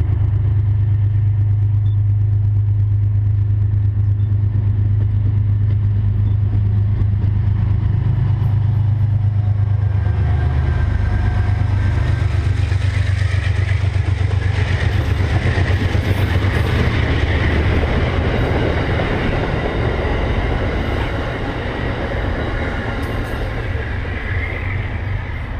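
Amtrak GE Genesis P32AC-DM diesel locomotive running under power with a steady low engine drone as it approaches. About ten seconds in it passes, and the passenger coaches follow, rolling by with wheel and rail noise that slowly fades as the train pulls away.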